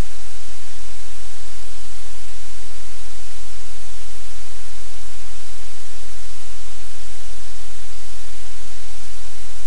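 Loud, steady static hiss with a low electrical hum underneath, unchanging throughout: noise from the livecam's audio feed, with no other sound standing out.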